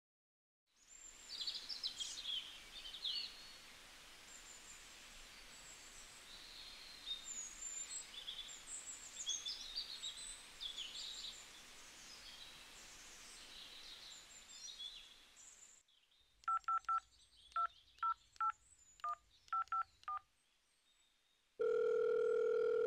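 Birds chirping over a faint outdoor hiss for about fifteen seconds. Then a phone keypad dials a number in about ten quick two-tone beeps, and near the end a call's steady ringing tone begins.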